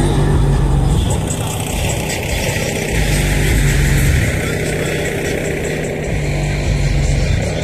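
Motorcycle engine running under way, its level swelling twice as the throttle opens and eases.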